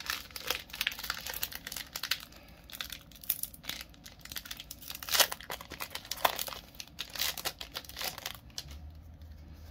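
Foil wrapper of a Pokémon TCG booster pack crinkling and tearing as it is ripped open, a run of sharp crackles loudest about halfway through, going quieter near the end.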